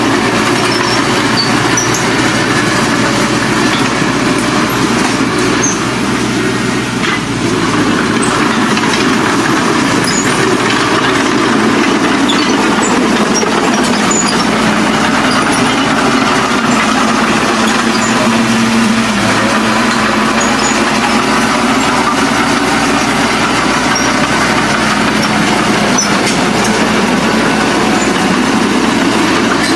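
Heavy earth-moving machine's engine running steadily, with a brief rise in pitch a little past the middle.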